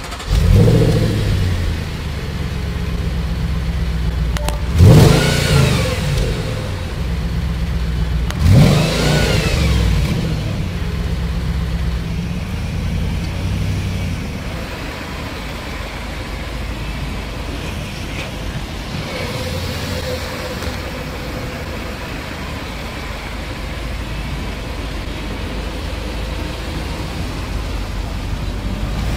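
Supercharged Audi RS4 B7 4.2-litre V8 starting up with a loud flare, then two quick blips of the throttle about five and nine seconds in, each rising and falling sharply, before it settles into a steady idle.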